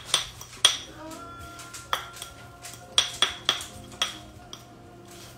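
Metal whisk clinking against a ceramic bowl while whisking pancake batter: irregular sharp taps, a few in the first second and another cluster about three to four seconds in, with softer stirring between.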